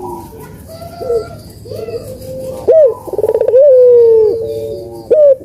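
Puter (Barbary doves) cooing, several calls overlapping, louder from about halfway through, with long notes that drop in pitch at the end. Played as a lure to set silent puter doves calling.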